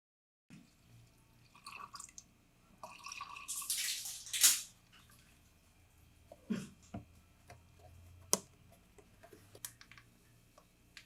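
Liquid pouring in a short rush that peaks about four seconds in, with dripping, then a few sharp clinks of kitchenware.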